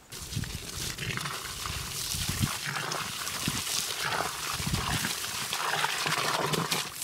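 Post-hole auger boring into dirt: an irregular, continuous scraping and crunching of soil and grit against the turning blade, with dull low knocks mixed in.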